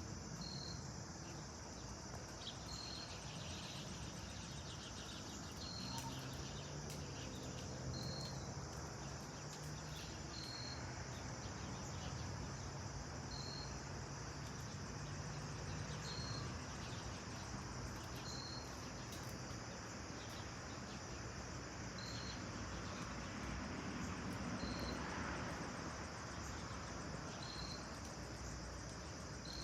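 Faint, steady rumble of a Boeing 787-9 airliner flying high overhead. A short, high chirp repeats about every two to three seconds.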